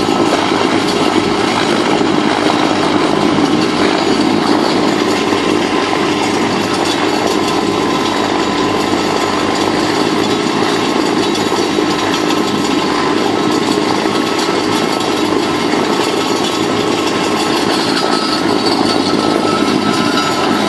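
GROWI three-point PTO slurry mixer, driven by a tractor's power take-off, running steadily at full work as it churns up the floating crust of liquid manure in an open pit.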